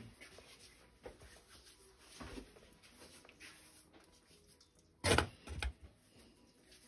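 Hands kneading a yeast dough in a stainless steel bowl: quiet soft handling sounds, with one sharp thump about five seconds in and a couple of smaller knocks just after.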